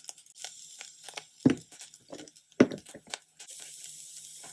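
Spice shakers being shaken over a nonstick pan of vegan chicken strips. There are several sharp knocks, two of them loud, and a steady sprinkling hiss near the end.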